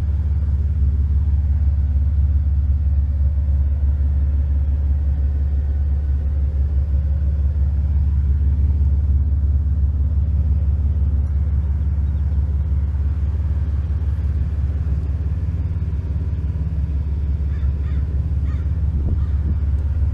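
Audiobahn AW1508X 15-inch subwoofer, its surround glued back on, playing a loud, steady deep bass note in a carpeted box inside a truck cab.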